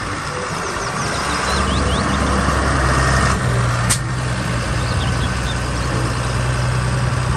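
Large green Fendt farm tractor's diesel engine running as the tractor drives slowly, a steady low hum with a broad hiss over it. It gets a little louder after about a second and a half, and there is one sharp click about four seconds in.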